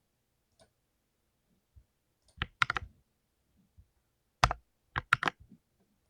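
Full-size mechanical keyboard with lubed blue (clicky) switches being typed on: a few faint single taps, then two short bursts of sharp keystroke clicks, about two and four seconds in.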